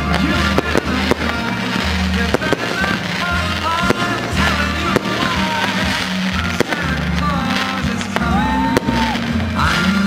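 Aerial fireworks going off: irregular sharp bangs and crackling from rockets and bursting shells, heard together with music that has a steady bass beat.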